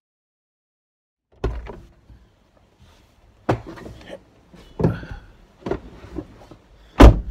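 Camera handling noise inside a car cabin: after about a second and a half of silence, a series of about five knocks and thumps with rustling between them as the camera is set in place, the loudest knock near the end.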